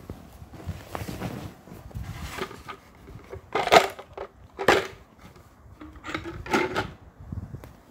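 Seashells clinking and knocking against a clear glass jar as the jar is tipped and handled, with three sharper, briefly ringing clinks in the middle and latter part, among rustling and bumping.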